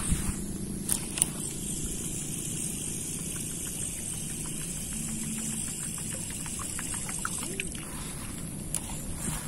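Fishing reel being wound in, a light, even ticking at about six a second, as a wooden jump-frog topwater lure is retrieved across the water. Two sharp clicks come about a second in, over a steady low rumble.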